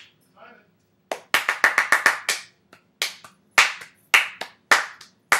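Hands clapping out a rhythm: a quick run of about eight claps, then claps in short pairs.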